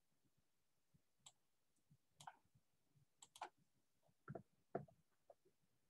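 Near silence broken by about a dozen faint, irregular clicks and taps from drawing graph axes on a computer whiteboard, the loudest near three and a half, four and a half and five seconds in.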